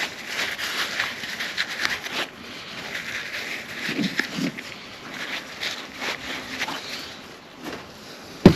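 Scratching and rubbing at the power steering pump housing as the seal bore is cleaned out: a run of quick, scratchy scrapes for about two seconds, a short low sound around four seconds in, softer rustling after, and a sharp knock at the very end.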